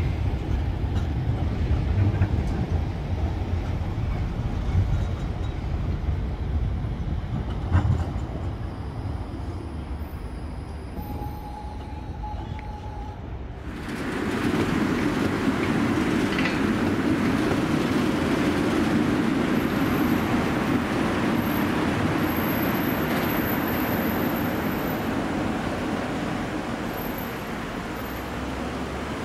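Brussels trams running on their rails. First comes a low rumble with a few clicks and a short steady squeal about 11 seconds in. Then, about 14 seconds in, a louder rolling rumble and hiss of a tram approaching along its track.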